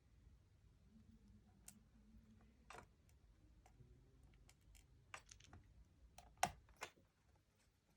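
Faint, scattered clicks and taps of a Phillips screwdriver and small screws against a laptop's plastic case as screws are put in, with a few sharper clicks in the second half.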